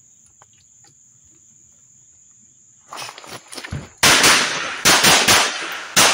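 A 9mm CZ P-01 pistol fired in a quick string of about five shots over two seconds, preceded by soft rustling and clicks of the draw.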